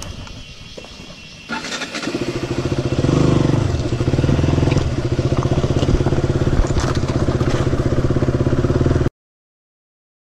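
Motorcycle engine running quietly, then the throttle opens about a second and a half in. The engine note builds and holds a steady, loud pulling sound as the bike rides off. The sound stops abruptly near the end.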